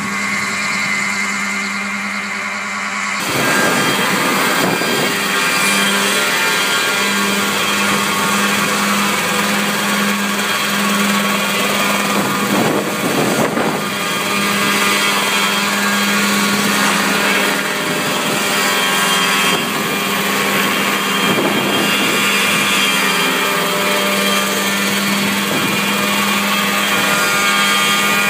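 Mosquito single-seat ultralight helicopter running and hovering: a steady engine-and-rotor drone, fainter at first and then louder and closer after a cut about three seconds in. Wind rumbles on the microphone a few times.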